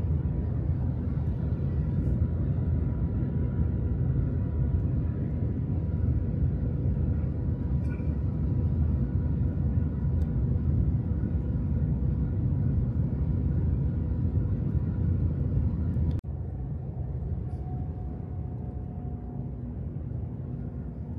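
Steady rumble of the Shanghai Maglev train heard inside the passenger cabin while it travels at speed, with a faint steady hum over it. About 16 seconds in it drops abruptly to a quieter rumble with a slightly different hum.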